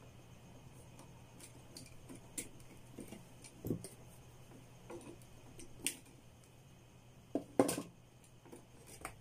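Scattered small clicks and knocks of a plastic wall switch and its wires being handled and fitted at a plastic utility box, with a louder double knock about three-quarters of the way through.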